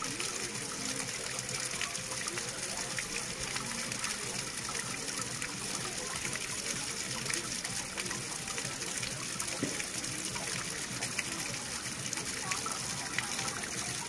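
Running water flowing steadily, a continuous gush with many small trickling splashes.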